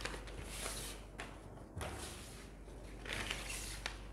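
Paper rustling and light handling clicks as ballot papers are unfolded and handled, in two soft bursts about half a second in and about three seconds in.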